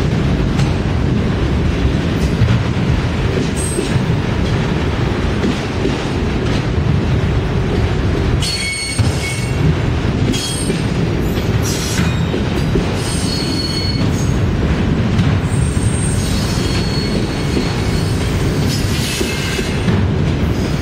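Norfolk Southern freight train's autorack cars rolling past with a steady heavy rumble of steel wheels on rail. High-pitched wheel squeal comes and goes from about eight seconds in.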